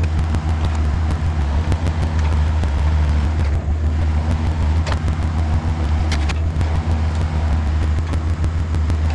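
Volvo EC35C mini excavator's diesel engine running steadily at working speed, with a couple of short knocks about five and six seconds in.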